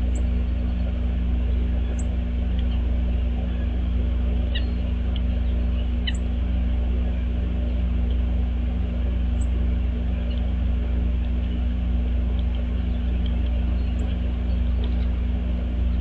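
A steady low hum and rumble, with brief, faint high chirps from small birds every few seconds.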